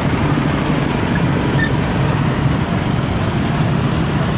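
Steady roadside traffic noise: the engines of passing vehicles running.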